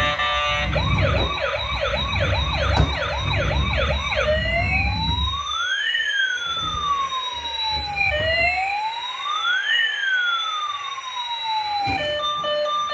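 Electronic siren of a toy emergency vehicle. For about the first four seconds it plays a fast yelp, about three sweeps a second, over a low rumble. It then switches to a slow rising-and-falling wail, and near the end changes to a tinny tune of steady beeping notes.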